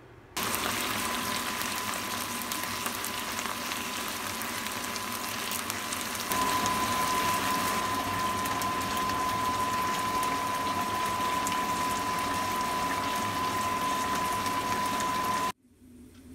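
Beef steak pieces sizzling as they sear in a hot pan, a steady crackling hiss with a steady high whine running under it. The sound gets louder about six seconds in and cuts off abruptly near the end.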